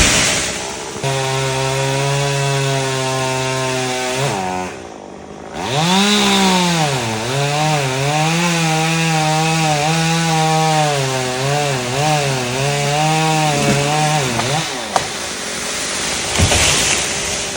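Chainsaw cutting wood under load at a steady pitch. About four seconds in it drops away briefly, then revs up and cuts again with a wavering pitch, stopping a few seconds before the end.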